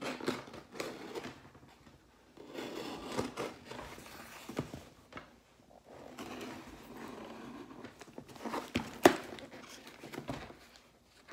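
A cardboard shipping box being handled and slit open with a utility knife: irregular rustling and scraping of cardboard and packing tape, with a few clicks and one sharp knock about nine seconds in.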